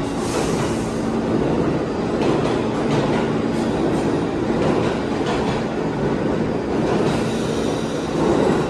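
Two New York subway trains of R46 cars accelerating out of an underground station on tracks to either side, a steady rumble of motors and wheels with a few clicks.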